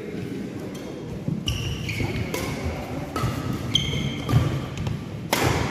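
Badminton rally: rackets striking the shuttlecock several times, sharp hits a second or so apart with the loudest near the end, some followed by a brief high squeak, over the low noise of a sports hall.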